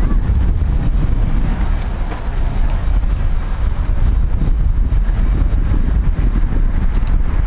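A Blue Angels F/A-18 Hornet's twin jet engines running as the jet rolls along the runway: a loud, steady low rumble.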